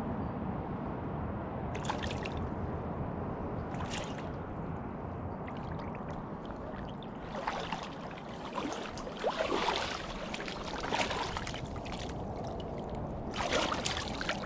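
Water splashing in short bursts, several times, as a hooked largemouth bass thrashes at the surface while being played in, over a steady low background rumble.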